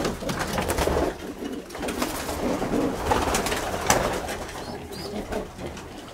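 Domestic pigeons cooing, with a few short sharp clicks among them.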